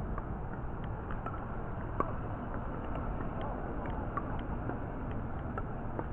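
Steady outdoor rumble of wind on the microphone, with a couple of sharp pops of pickleball paddles striking the ball, the clearest about two seconds in.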